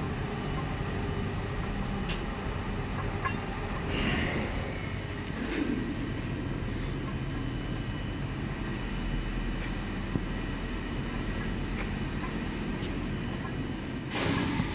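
Hot melt film lamination machine running, its rollers turning steadily: a continuous low mechanical rumble with a steady high whine over it.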